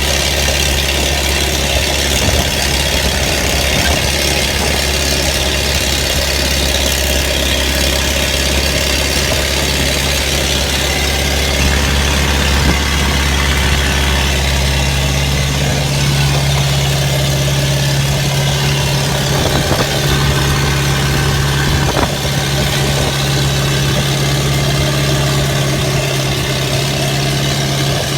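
Four-cylinder Perkins 4.248 diesel of a JCB 5C excavator running steadily. About halfway through its engine speed steps up and holds at the higher pitch.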